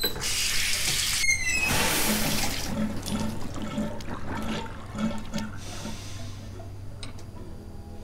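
Water running from a tap into a bathroom sink and splashing down the drain, washing blood away. It is loudest for the first few seconds, then quieter and fading.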